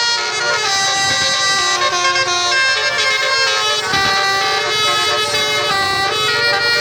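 Musical "telolet basuri" bus horn playing a tune: several steady horn notes sounding together and stepping from one pitch to the next every half second or so.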